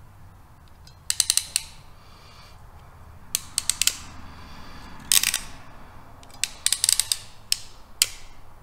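Ratcheting crimping tool clicking as its handles are squeezed down on a heat-shrink butt connector, crimping it onto a wire. The clicks come in several short runs of quick ticks.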